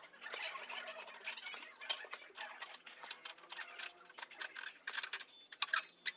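Parts of a condenser microphone's mount and holder being handled and screwed together: irregular small clicks, taps and rubbing.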